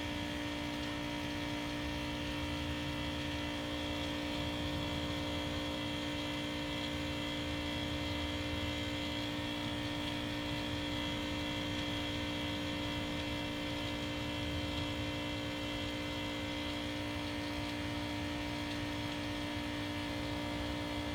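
Steady machine hum with several held tones over a low rumble, unchanging throughout.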